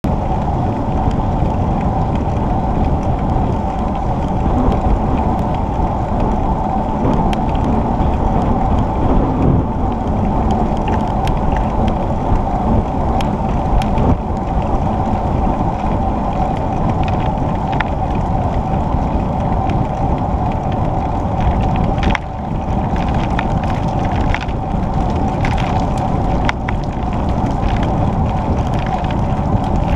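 Steady wind and tyre noise of a bicycle ride on an asphalt cycle path, picked up by a bike-mounted camera, with scattered small clicks and rattles.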